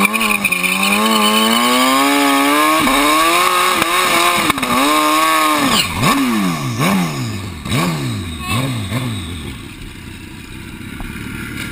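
Drag-racing motorcycle engine held at high revs, its pitch climbing steadily for about six seconds with a couple of brief dips. It then gives a run of quick throttle blips, each falling away, before settling to a lower, quieter running.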